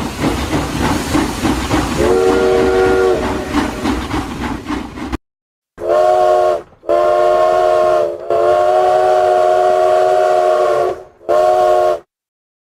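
A train running with a rumble and hiss, and a short whistle toot about two seconds in. After a brief silence, a train whistle sounding several notes at once is blown four times; the third blast is the longest.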